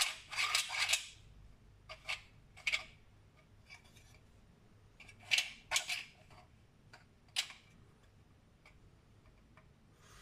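3D-printed plastic lens and guide part being handled and turned, giving short clicks and scrapes in scattered groups, the loudest in the first second.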